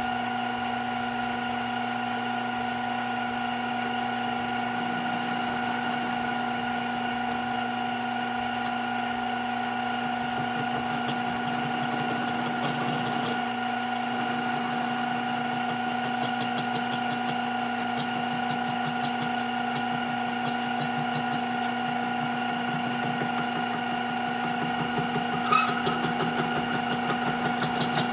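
Metal lathe running steadily while a boring bar cuts the inside of a steel EMT conduit tube, with a thin high whine from the cut coming and going. A sharp click comes near the end, followed by a fast rhythmic pulsing.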